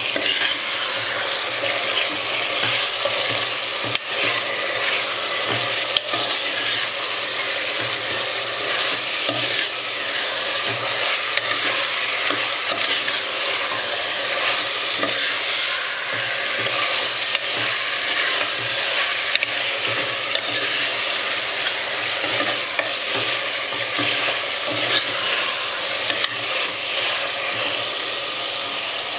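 Marinated desi rooster pieces sizzling as they stir-fry in hot oil on a high flame, turned over and over with a metal ladle that clicks against the pot now and then. This is the searing stage that drives off the raw ginger-garlic smell.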